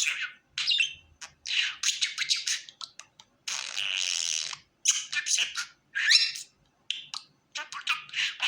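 Budgerigar chattering: quick runs of chirps, warbles and squawks with short gaps, and one longer harsh, raspy sound a little before the middle.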